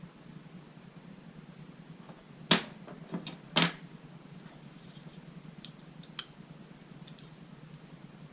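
Folding pocket knives being handled: a few sharp clicks and knocks, the two loudest about two and a half and three and a half seconds in, then a couple of faint ticks.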